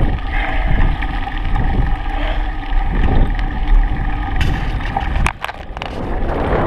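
A vehicle's engine running with wind rumbling on the microphone. About five seconds in the level drops briefly, with a few sharp clicks, then the running sound builds again.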